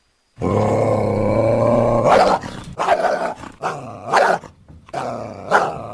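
Made-up aardwolf creature sound mixed from coyote and hyena recordings. It starts a moment in with a low, steady-pitched call held for nearly two seconds, then about five short calls in quick succession.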